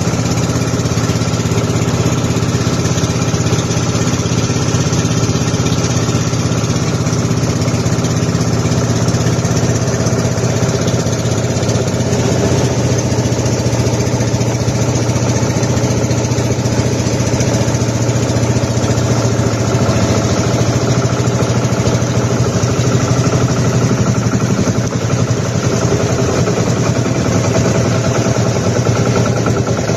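Boat engine running steadily at an even speed.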